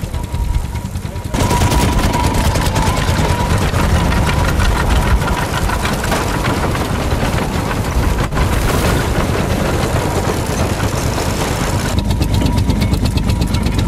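Ivel tractor's twin-cylinder petrol engine running with rapid, even firing beats as it pulls a binder cutting oats, with the binder's mechanism clattering along. The sound gets much louder about a second in.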